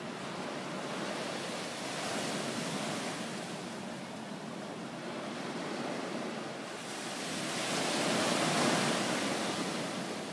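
Ocean surf: a steady rush of waves that swells about two seconds in and again, loudest, around eight to nine seconds in.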